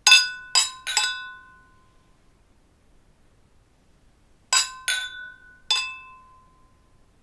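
Wine glasses clinking together in a toast: two groups of three quick clinks, near the start and again about four and a half seconds in, each ringing briefly after the strike.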